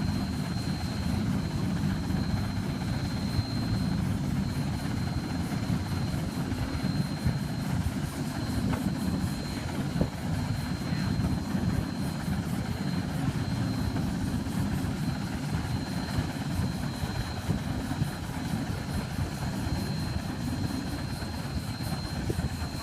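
Steady low mechanical rumble of machinery running, with a constant thin high whine over it and a few faint knocks.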